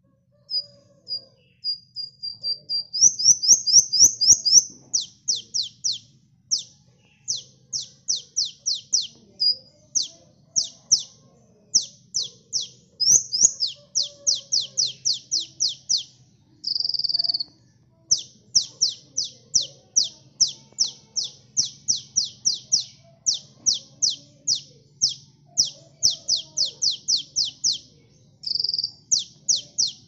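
A sunbird singing a rapid, high, chattering song: runs of quick, sharp downward-sweeping notes, several a second, broken by short pauses, with a few longer buzzy notes mixed in, such as one about 17 seconds in and one near the end.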